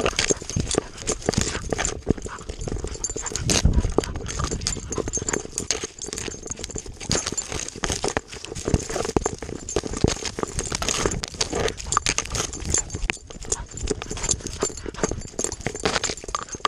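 A dog running through dry grass and mud, heard from a GoPro strapped to its chest: a steady stream of paw footfalls and body jolts knocking the camera, with grass brushing past the lens.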